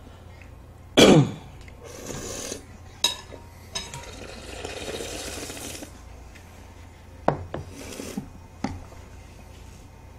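A metal spoon and a wooden ice-cream stick clinking and scraping against glass mixing bowls of melted ice cream, in scattered short knocks. About a second in there is one loud sudden noise.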